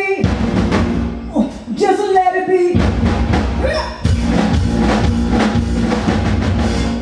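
Live band with drum kit, guitar and bass: a singer holds two long notes over the band, then the drums play on steadily through the last few seconds.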